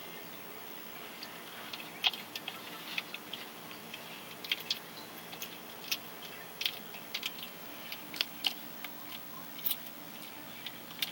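Bearded dragon chewing a blue hornworm: irregular sharp clicks and smacks of its jaws, over a faint steady hum.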